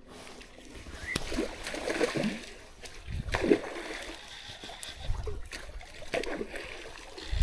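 Water splashing and sloshing in several irregular bursts, with low thumps between them.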